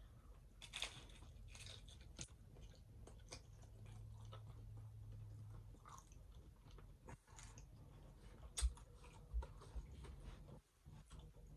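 A person chewing and biting crunchy hard taco shells, with scattered crisp crunches and crackles; the sharpest crunch comes about eight and a half seconds in.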